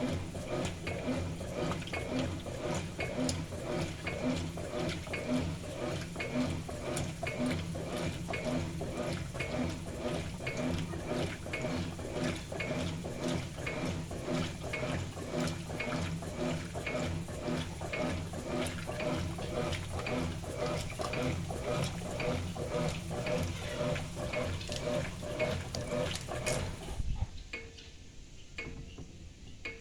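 Consul CWS11A 11 kg top-loading washing machine agitating a load of kitchen cloths in water: the agitator swishes back and forth in a steady rhythm with water sloshing. Near the end the agitation stops for about three seconds, leaving a faint hum, then starts again.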